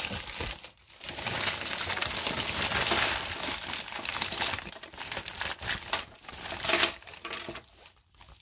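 Wrapped candies and lollipops sliding and pouring out of a mailing envelope onto a table: a long stretch of dense crinkling and rustling of plastic candy wrappers and the envelope, starting about a second in and dying away near the end.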